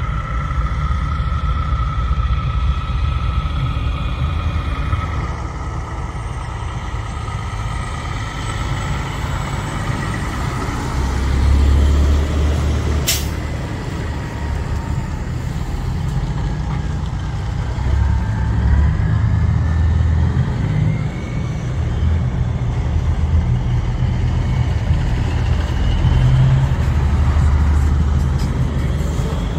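Diesel semi trucks running and rolling past slowly, a deep steady engine rumble that swells twice as trucks pass close. A single sharp click sounds about thirteen seconds in.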